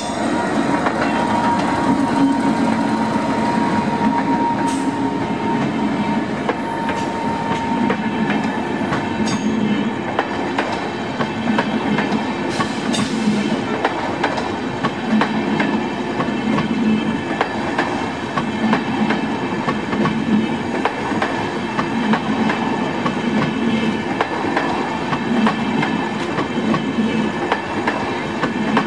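Indian Railways WAP-7 electric locomotive and its passenger coaches running through a station at speed without stopping: a steady rushing rumble with the regular clickety-clack of wheels over rail joints. A steady high tone fades out about eight seconds in, and there are a few sharp clicks.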